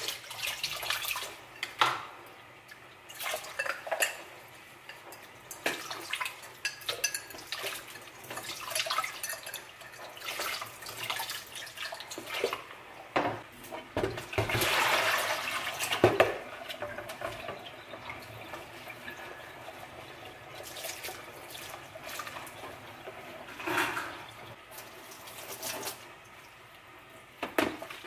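Washing up by hand at a stainless steel sink: the tap running, a sponge dish brush scrubbing, and plastic dishes knocking and clattering against the sink many times.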